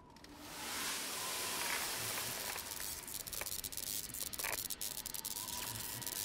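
Cremated ashes pouring out of a tipped urn: a steady hiss that swells in about half a second in and holds, with small crackles through it.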